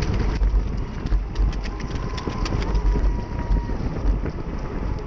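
Low, pulsing wind buffeting on a microphone set at road level, with scattered sharp clicks over it.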